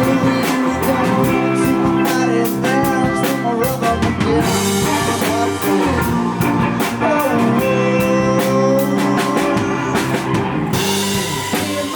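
Live rock band playing between sung lines: a drum kit keeps a steady beat under guitar.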